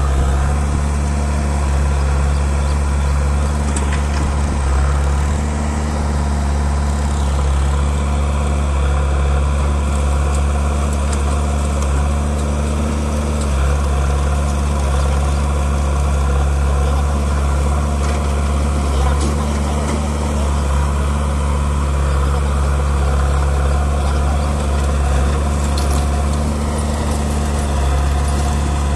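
Heavy diesel engine running steadily at low, even speed, with a few faint clinks.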